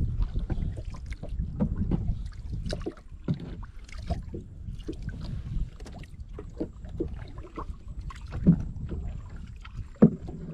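Small boat on the water, with a steady low rumble of wind on the microphone and many light scattered knocks and clicks. Two sharper knocks come near the end.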